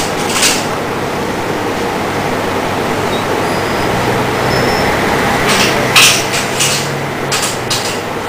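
Small lawnmower engine running on pure HHO (hydrogen–oxygen) gas from an electrolyser, a loud steady run with a handful of sharp cracks from about five and a half seconds in.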